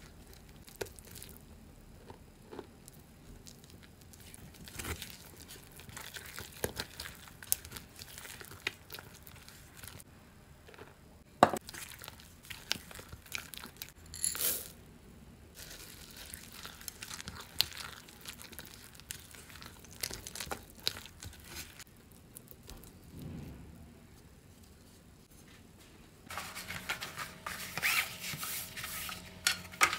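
Silicone spatula stirring and scraping thick cookie dough around a mixing bowl, with scattered scrapes and a few sharper knocks. Near the end, baking paper crinkles as hands press it into a baking tray.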